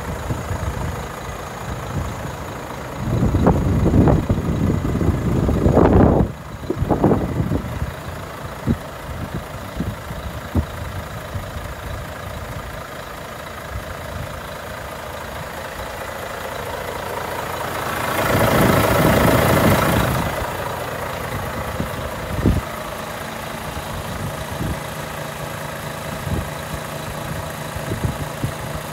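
Volvo FH 500's 13-litre straight-six diesel idling steadily. About three to seven seconds in there are bouts of loud low rumble, and around eighteen seconds in a two-second rush of hiss.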